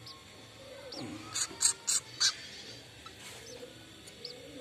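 White-breasted woodswallow nestlings calling from the nest box as a hand lifts them out. There are a few faint short chirps, and four loud, short, harsh calls in quick succession about a second and a half in.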